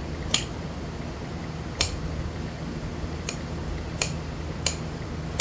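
Large tailor's shears snipping through suit fabric: six sharp, irregularly spaced snips as the front edge of the jacket is trimmed.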